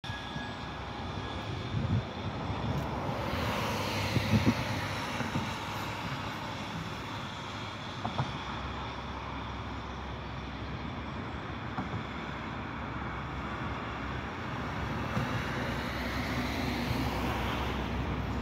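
Road traffic on a wet road: a steady hiss of tyres that swells and fades as cars pass, with a few short knocks in the first half. Near the end a low rumble builds as a railcar approaches along the line.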